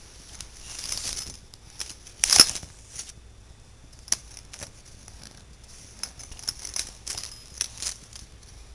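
A toddler rummaging through a purse: the contents rustle and crinkle in irregular bursts with small clicks, one louder rustle about two seconds in.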